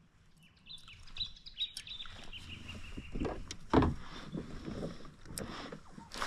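Knocks and bumps from a kayak and fishing gear being handled on the water, the loudest a thump near the middle. Before it, a thin high tone steps down in pitch for about two seconds.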